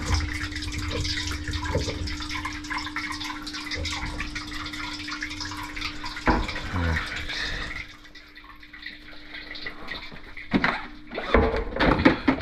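Backed-up water from a grease-clogged kitchen sink drain line trickling and dripping out of the opened drain pipe into a stainless steel bowl, stopping about eight seconds in. Near the end come a few sharp knocks and clatters.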